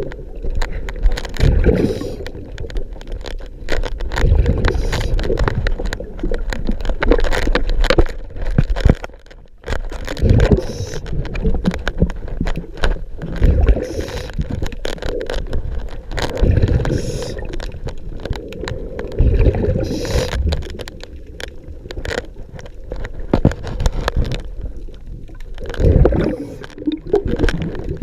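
Scuba diver breathing through a regulator underwater: bursts of exhaled bubbles gurgle past the microphone about every three seconds.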